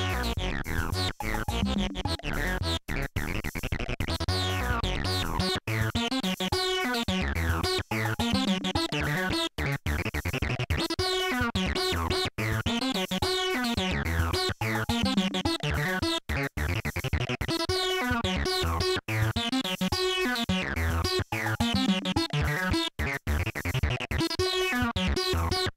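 Polivoks analog synthesizer playing a continuous run of notes, its tone sweeping and shifting as the panel knobs are turned. The sound is broken by brief, sudden cut-outs every second or two.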